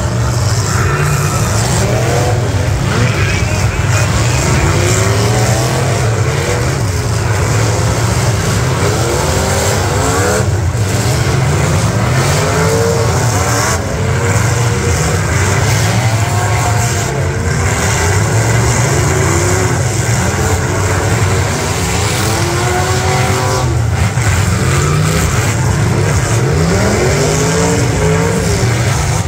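Several eight-cylinder demolition derby car engines running hard, revving up and down over one another as the cars ram each other, with a few sharp bangs of metal on metal from collisions.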